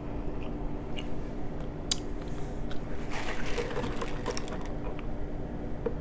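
Close-miked mouth sounds of eating: chewing with scattered wet clicks, a sharper click about two seconds in, and a denser patch of clicks about three seconds in.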